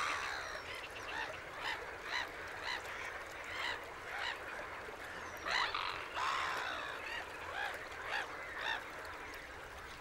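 A flock of waterfowl calling: a string of short repeated calls, about one or two a second, some overlapping, louder a little past the middle and thinning out near the end.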